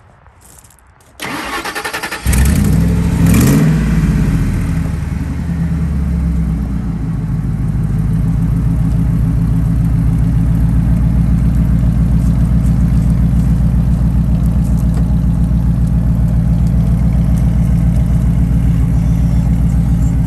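2001 Ford F-150 Lightning's supercharged V8 being started: the starter cranks for about a second, the engine catches about two seconds in and flares up briefly, then settles into a steady idle.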